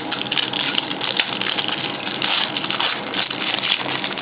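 Crinkling and rustling of a foil trading-card pack wrapper and cards being handled: a dense, crackly rustle.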